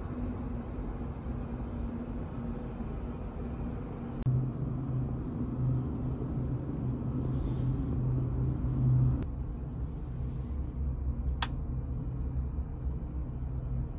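Steady low rumble and hum of a ferry's onboard machinery and ventilation, heard inside a passenger cabin, with the hum growing stronger for a few seconds in the middle. One sharp click near the end.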